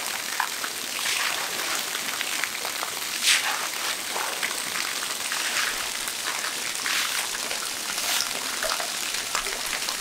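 Water running and splashing steadily as the repaired pond is being filled, with small irregular splashes throughout.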